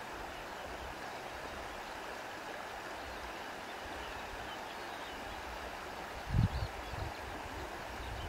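Steady rushing of a flowing stream, with faint bird chirps above it. A few brief low thuds come about six seconds in.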